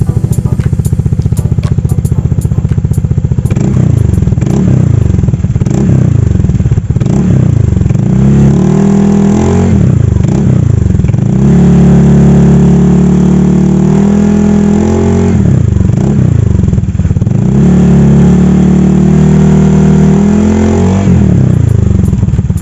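Honda ADV150 scooter's 149cc single-cylinder four-stroke engine through an aftermarket Akrapovic exhaust. It idles for a few seconds, then is revved repeatedly in quick blips. Twice it is held at high revs for a few seconds, and it drops back near the end.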